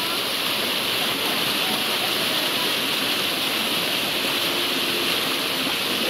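Small waterfall cascading over rock, a close, steady rush of falling water.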